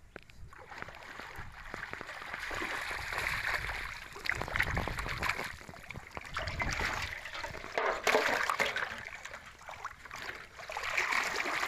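Shallow water splashing and sloshing as a person wades knee-deep through it and handles fish and plastic bottles in a water-filled steel basin.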